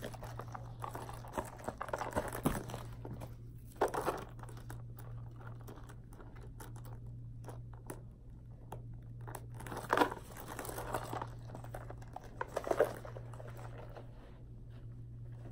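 Hands handling small canvas pouches and their metal clasp hardware: rustling and crinkling with scattered sharp clicks, the loudest around four, ten and thirteen seconds in, as a piece is clipped onto the set. A steady low hum runs underneath.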